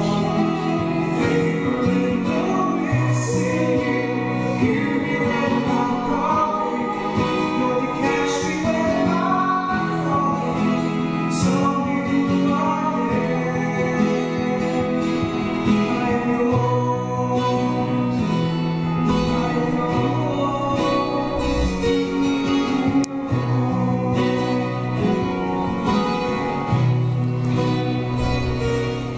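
A small church choir singing a hymn through a microphone, with an accompanying instrument holding long low notes under the voices.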